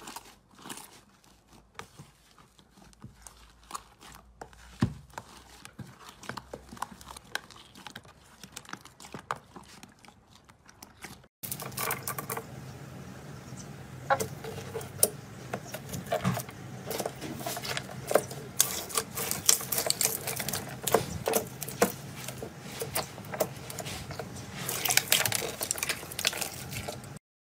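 Slime being pressed, poked and stretched by hand, giving quick sticky clicks and crackling pops. About eleven seconds in it cuts to a louder clip with denser popping over a low hum, which stops suddenly near the end.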